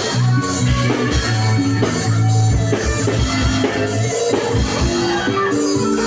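A live rock band playing during a soundcheck: drum kit with repeated kick-drum hits under a steady bass line and guitar.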